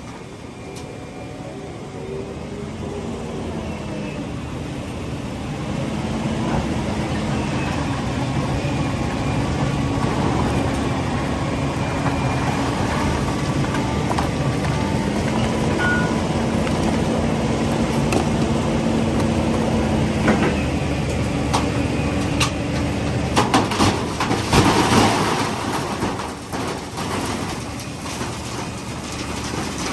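Large diesel excavator engine running under working load, growing louder a few seconds in, with a cluster of sharp knocks about three-quarters of the way through.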